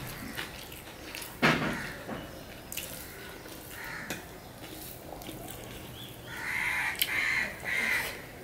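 Fingers mixing rice and curry on a steel plate, with a sharp click about one and a half seconds in. Near the end a crow caws three times in a row.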